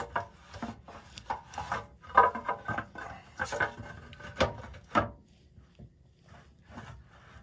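Hands working among metal tools and parts: a busy run of knocks, clinks and scraping for about five seconds, then only a few faint taps.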